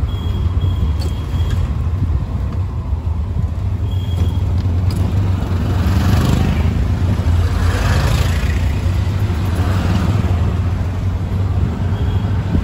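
Road traffic with a steady low rumble; an auto-rickshaw passes close by, swelling in the middle and then fading.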